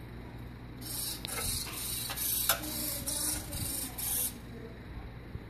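Hobby servos in an R2-D2 dome whirring in a quick run of short spurts as they swing the dome panels open and shut on their hinges, starting about a second in and stopping about four seconds in. They are running well on a regulated 5-volt supply.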